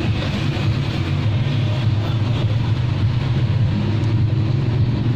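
Steady low machine hum with a noisy rush over it, unchanging throughout.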